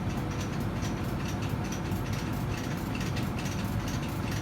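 Crane lifting gear working: a steady low mechanical running with rapid, irregular clicking and rattling, as a heavy load is hoisted or lowered.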